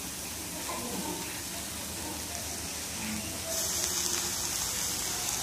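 Onions and spice masala frying in hot oil in a pan, with freshly added chopped tomatoes on top: a steady sizzle that grows louder and hissier about three and a half seconds in.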